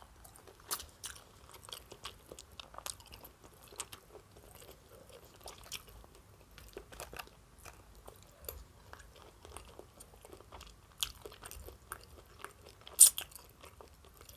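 Close-miked chewing of food, heard as many short mouth clicks and crunches, with one sharper, louder click near the end.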